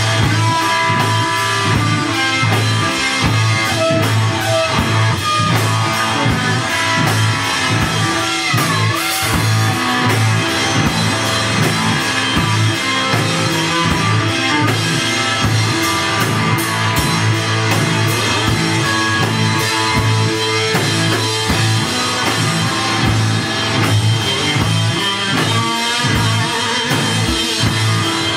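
Live rock band playing loudly and without a break: guitar over a busy drum kit.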